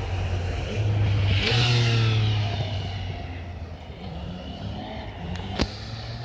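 Street traffic: a road vehicle passes close by about a second in, its engine note falling in pitch as it goes away. Steady traffic noise follows, with a single sharp click near the end.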